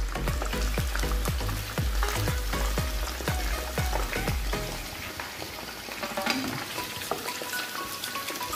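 Breaded chicken strips deep-frying in hot oil: a steady sizzle, with a slotted metal spoon stirring and turning the pieces. Background music with a deep bass and repeated falling tones sits under it for about the first half.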